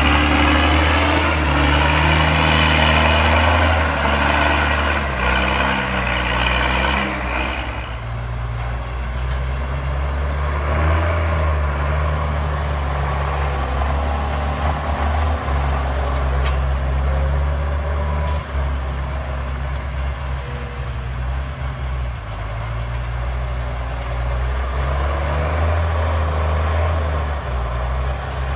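County 1164 Turbo tractor's turbocharged six-cylinder diesel working under load. A high whine rides over the engine note for the first eight seconds or so, then drops away abruptly, and the engine runs on with its revs rising and falling as it works.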